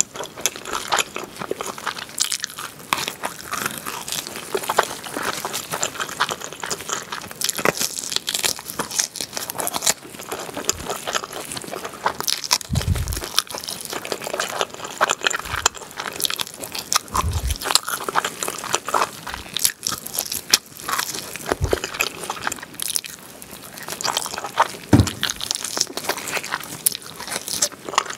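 Close-miked eating of a grilled pork back rib: rapid crunchy clicks and crackles of biting and chewing meat off the bone, with a few short dull thumps along the way.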